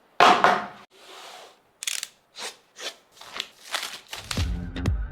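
Phone box packaging being opened by hand: a loud tearing rustle, a soft scrape, then a string of short crinkling and tearing sounds. Electronic music with a steady beat starts about four seconds in.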